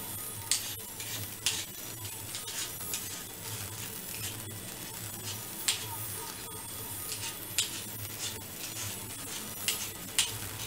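Vegetable peeler scraping the skin off a raw potato in short strokes at irregular intervals, about one a second, over a faint low hum.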